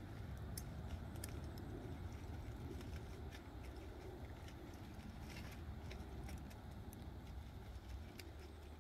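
Scattered small pops and crackles from a wood fire's embers under a ham steak cooking on a grill, over a steady low rumble.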